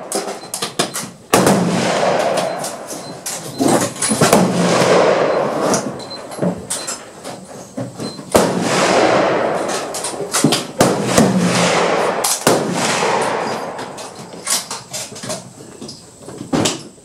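Gunshots at a shooting range, several a few seconds apart, each trailing off in a rolling echo, with sharper small cracks in between.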